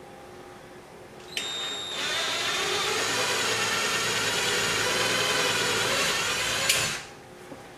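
Power drill boring a hole in a C8 Corvette's lower rear bumper: it starts about a second in, runs steadily for about five seconds, and stops near the end with a click.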